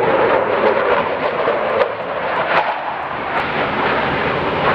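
Jet aircraft flying past at an air display, its engine noise a steady rushing sound.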